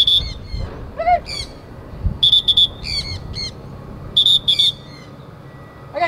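Sun conure giving short, shrill screeching calls in quick clusters of two or three, repeated every couple of seconds.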